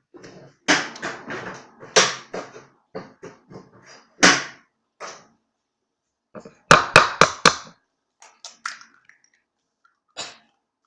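An egg being knocked against the edge of a bowl to crack it, with clatter and shell handling. About two-thirds in comes a run of about five quick, sharp taps. The egg ends up broken over the side of the bowl.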